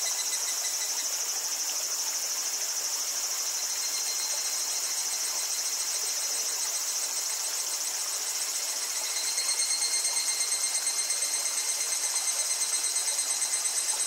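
Cicadas calling in a steady high-pitched chorus over the soft babble of a small stream. About two-thirds of the way through, a nearer call swells in with a fast pulsing rhythm.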